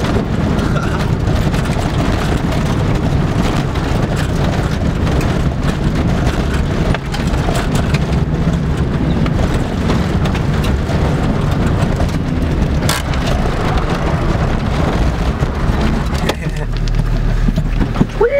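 Corsa 1.5 diesel driving on a gravel dirt road, heard from inside the cabin: the engine drones under loud tyre rumble, with many small knocks from stones. Near the end the rumble eases and a steady low hum remains.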